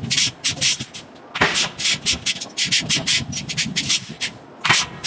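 A long-handled tool scraping over the face of a glowing-hot forged iron block: quick, rasping strokes several times a second, with two short pauses, about a second in and again about four seconds in.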